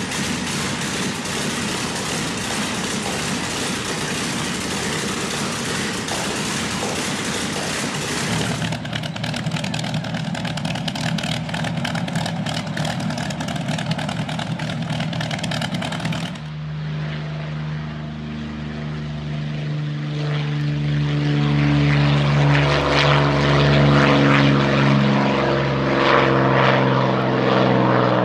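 Mikulin AM-38 V12 aero engine running hard, in three cuts. First a dense, loud test-stand run. About eight seconds in it changes to a rougher, crackling run. Then, after about sixteen seconds, comes an Il-2 Sturmovik's engine and propeller with a steady pitched drone that grows louder a few seconds later.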